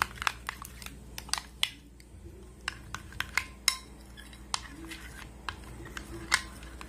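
A utensil stirring thick chocolate ganache in a glass dish, knocking and scraping against the glass in irregular sharp clicks and taps.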